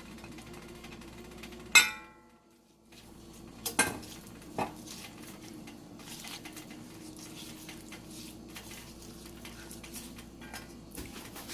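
Metal cookware clanking: a loud ringing clang about two seconds in, a few more knocks around four seconds, then light clinks and scraping of stirring in the pan.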